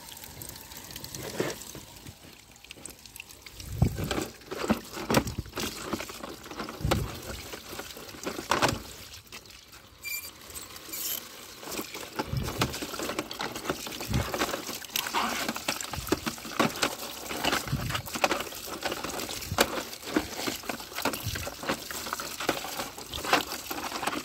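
A stream of running water pouring into a plastic bucket and splashing over muddy toy vehicles, with frequent irregular knocks and clatter as the toys are handled and bump against each other and the bucket.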